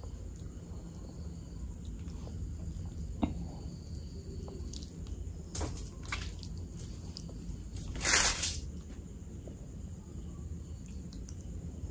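Soft, wet squishing of fingers mixing and squeezing rice with thick mutton curry, with scattered small clicks. A louder, brief noisy rush comes about two-thirds of the way through.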